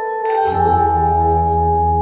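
Slow music of long ringing tones. A new chord is struck about a quarter second in, and deep sustained bass notes come in about half a second in.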